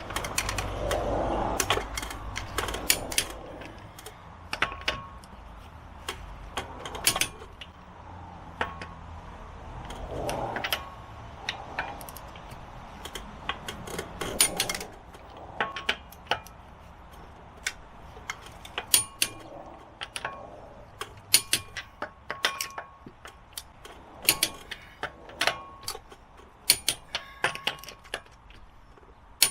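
Metal hand tools clinking and clicking irregularly during work on a car's front wheel and brake, with a low rumble in the first half that fades away.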